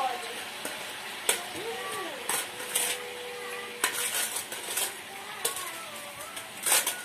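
Sweet potato pieces sizzling as they fry in oil in a stainless steel pan, with a metal spoon scraping and clinking against the pan several times as they are turned.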